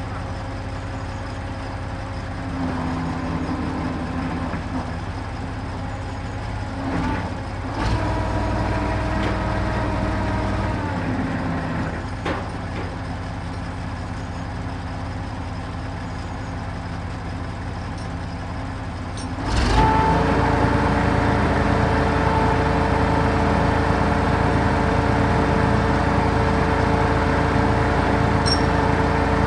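Truck crane's engine running steadily, then speeding up and getting louder about two-thirds of the way through as it drives the crane to unload concrete blocks. A few short metallic knocks come earlier, from the chains and load.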